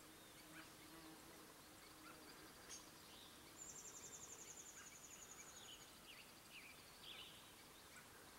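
Faint natural ambience with a high-pitched, rapidly pulsing insect trill lasting about two seconds in the middle, fainter ticking trills around it, and a few short faint chirps near the end.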